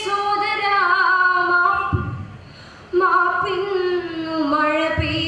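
A girl's voice singing a Malayalam poem unaccompanied in the melodic padyam chollal style, drawing out long held notes. One phrase ends about two seconds in, and after a short breath a second long phrase begins.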